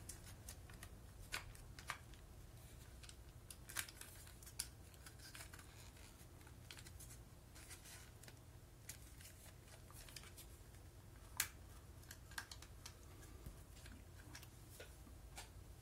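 Small, irregular clicks and taps of a Toshiba Walky KT-RS1 cassette player's plastic casing and mechanism being handled and fitted back together, with one louder click about eleven seconds in. A faint low hum lies underneath.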